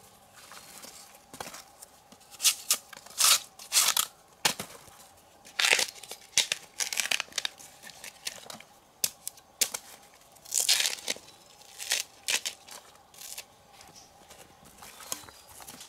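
Repeated tearing and crinkling sounds, coming in short sharp irregular bursts about once a second.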